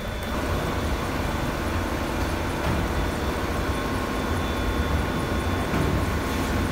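Steady low rumble and hum of machinery, with a few faint steady tones above it.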